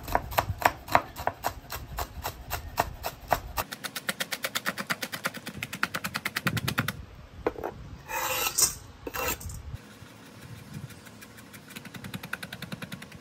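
A chef's knife chopping cooked bacon finely on a wooden cutting board: steady knife strikes a few a second, then a much faster run of chopping a few seconds in. About eight seconds in there is a brief louder noise, and near the end lighter, quicker chopping of fresh cilantro.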